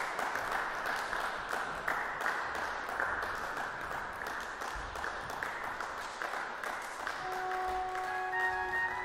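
Dense rushing noise with many fast, irregular clicks. About seven seconds in, the 1785 Pehr Schiörlin pipe organ begins holding a chord, its notes entering one after another.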